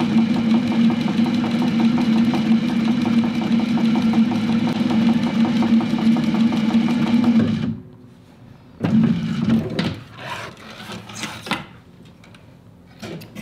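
Techsew 2750 Pro cylinder arm sewing machine stitching through leather at a steady speed, a motor hum under a fast, even stitch rhythm. It stops about eight seconds in, runs again briefly about a second later, then gives way to light clicks of the work being handled.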